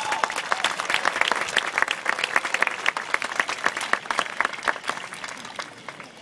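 Audience applauding, with dense hand claps that thin out and fade near the end.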